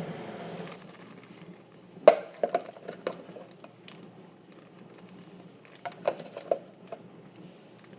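A spoon clinking and scraping against a bowl as a thick slime mixture is scooped out, with a handful of sharp knocks about two seconds in, and again around six seconds.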